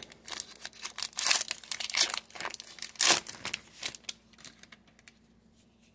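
Wrapper of a 2023 Panini Score Football card pack being torn open and crinkled by hand: a run of crackles over about four seconds, loudest about a second and three seconds in, dying away near the end.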